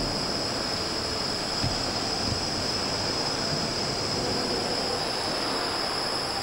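Steady mechanical running noise with a constant high-pitched whine.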